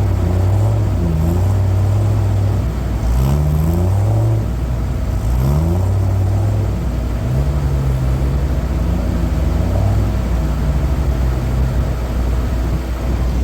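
Off-road truck engine revving up and down several times, its pitch rising in quick climbs and falling back, over a steady low engine drone.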